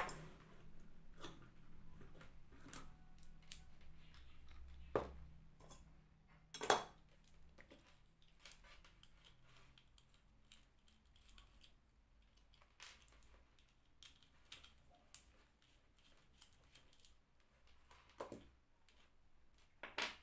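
Scattered small clicks and taps of hand tool work: a multi-bit screwdriver set being handled and a small screwdriver turning the screws out of a plastic motorcycle handlebar on/off switch housing. The sharpest clicks come about five and seven seconds in.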